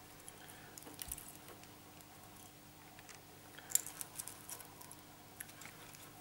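Hand cutters snipping away the support wires of a telephone drop wire cable, heard as faint scattered clicks and handling noise, the sharpest click just under four seconds in.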